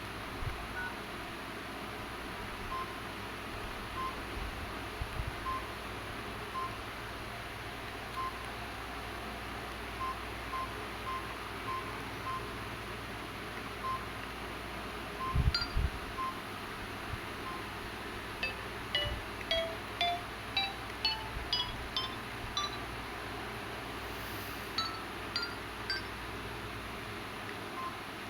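Samsung GT-E1150 mobile phone keypad tones as its buttons are pressed: short single beeps at irregular intervals, then a quicker run of higher multi-tone key beeps in the second half. A couple of low handling thumps come just past halfway.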